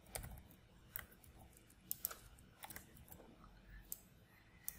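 Computer keyboard being typed on: faint, irregular keystrokes, a dozen or so separate taps.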